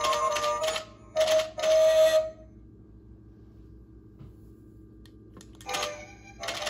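Hallmark Happy Tapper figurines playing a tinny electronic Christmas tune with the clicking taps of their dancing feet. The tune stops about two and a half seconds in, and after a pause of about three seconds the next song starts.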